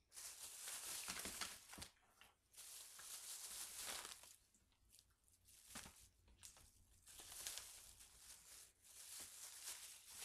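Shopping bags rustling and crinkling in irregular bursts with short pauses, as someone rummages through them for an item.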